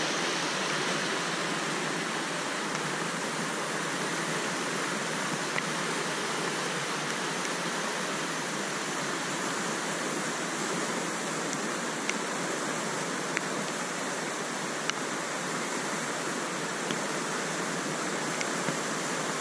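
Muddy floodwater rushing steadily down a normally dry desert riverbed in a flash flood after a thunderstorm, with a few faint clicks here and there.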